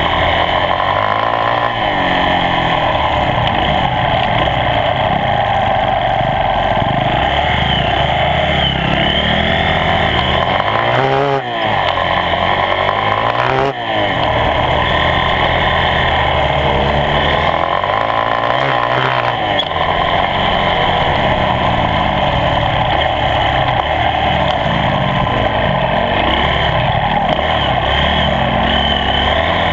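Dirt bike engine heard up close on a trail ride, its pitch rising and falling with the throttle, with two short dips in loudness around the middle.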